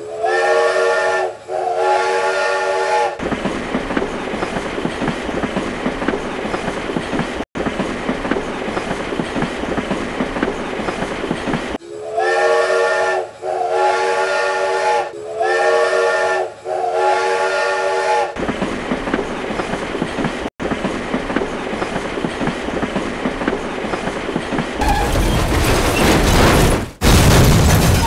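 Dubbed-in sound of a full-size train running, a steady clickety-clack of wheels over the rails, with its multi-note horn blown twice near the start and four more times about halfway through, each blast about a second and a half long. Near the end the rumble grows louder and heavier.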